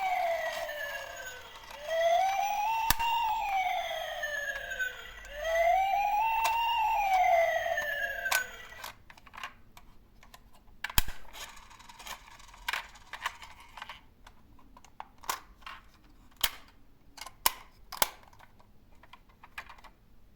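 Wailing emergency-vehicle siren, three slow rise-and-fall cycles of about three and a half seconds each, stopping about eight seconds in. Then scattered, irregular clicks and clacks of small toy cars rolling and knocking down a slope.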